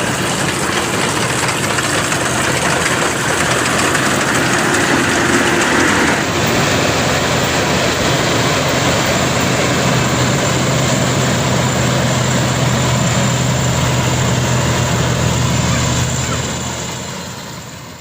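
Rice combine harvester running steadily, its engine and harvesting machinery making a continuous mechanical noise with a low hum. The sound shifts slightly about six seconds in and fades out near the end.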